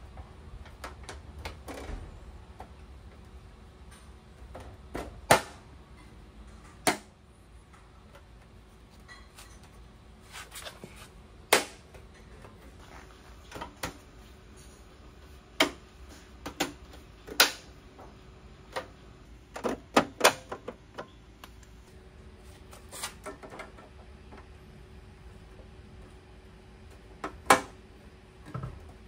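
Clear plastic trim beading being pressed onto the edge of a Vespa LX legshield: scattered sharp clicks and snaps at irregular intervals.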